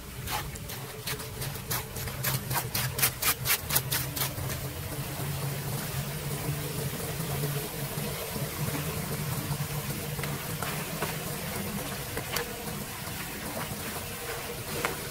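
Gloved hands scraping and scooping wet leaves and debris off a metal street-drain grate in shallow floodwater. A quick run of splashy scrapes, about four or five a second, comes in the first few seconds and a few more near the end. Water runs steadily underneath, along with a steady low hum.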